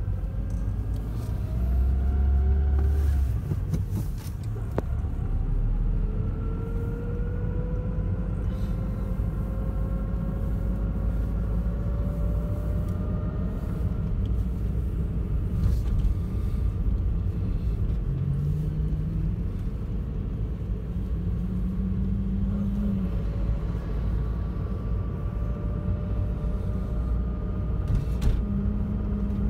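Car driving along a street: a steady low engine and road rumble, with the engine note rising slowly several times as it picks up speed.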